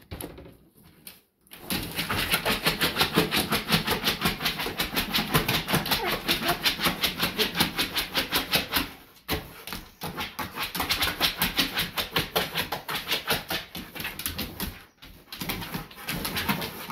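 A dog's claws scratching rapidly at linoleum flooring as it paws at a laser pointer's dot, about six or seven strokes a second in long runs, with short breaks about nine and fifteen seconds in.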